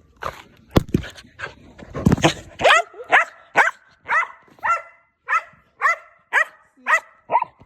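Eskimo dog barking repeatedly in a steady run of short, sharp barks, about two a second, through the second half. A few knocks and a scuffling noise come before it.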